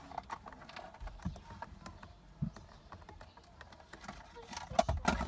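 Irregular light clicks and taps of buttons being pressed on the car's controls, with a louder cluster of knocks near the end.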